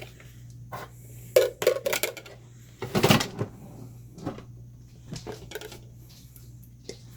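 Clinks and knocks of a crock pot and kitchenware being handled and set down on the counter, with a short denser clatter about three seconds in, over a steady low hum.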